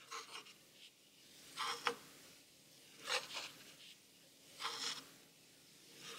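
Straight razor blade being honed on a whetstone: short scraping strokes of the steel across the stone, four of them about one every one and a half seconds.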